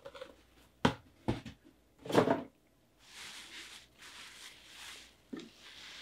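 Three sharp knocks of a cardboard box being handled and set down in the first couple of seconds, then from about three seconds in a steady crinkling rustle of bubble wrap being pulled off an acrylic enclosure.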